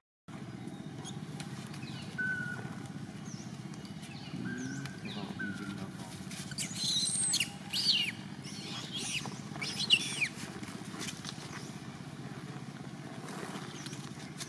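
Outdoor ambience: a steady low hum with a few short, high-pitched chirping calls, the loudest coming around seven to ten seconds in.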